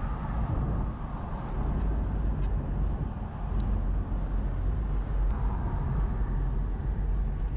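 Wind buffeting the microphone in a Ford Mustang convertible driving with the top down, over steady road and engine noise.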